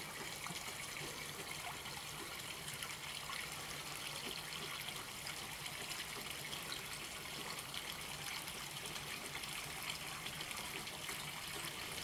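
Water splashing steadily from the spouts of a stone fountain into a stone basin, a continuous trickle with no breaks.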